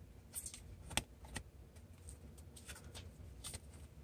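Thick cardstock postcards being handled and leafed through: faint scattered clicks and rustles of card, the sharpest about a second in.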